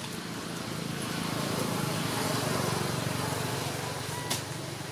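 A motor vehicle passing by: engine and road noise swell to a peak about halfway through, then fade. A single sharp click sounds near the end.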